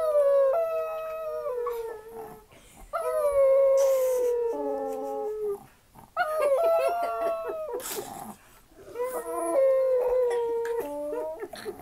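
Chihuahua howling like a wolf: four long, high howls in a row, each wavering and breaking in pitch, with short pauses for breath between them.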